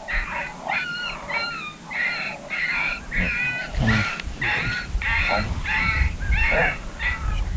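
Electronic predator call playing coyote yelps: a rapid, even series of short, high-pitched cries, about two a second.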